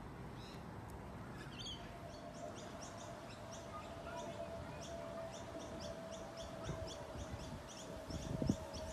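A small bird chirping in quick, evenly spaced high notes, about three a second, over a faint steady hum, with a brief low rumble near the end.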